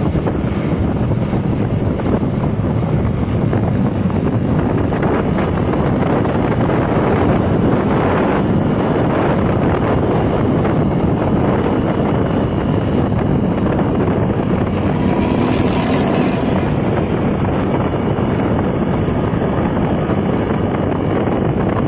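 Intercity bus running under way, its modified 'ngorok' exhaust giving a steady, loud snoring note, with wind on the microphone. A brief hiss about fifteen seconds in.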